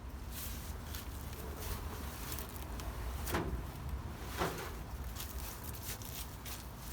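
A beehive being opened by hand: scattered knocks, clicks and scrapes of hive parts being moved, two louder knocks about three and a half and four and a half seconds in, over a steady low rumble.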